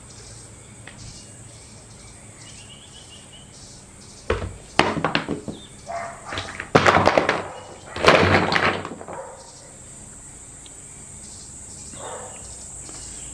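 A thud about four seconds in, followed by three short bursts of knocking and clattering.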